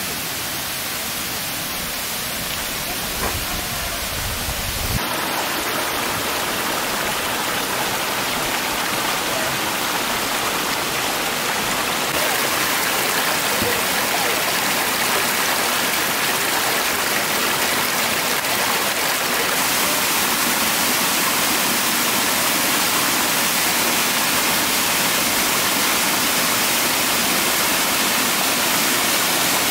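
Steady rushing of water, a dense even hiss with no distinct drops or splashes, growing a little louder about five seconds in.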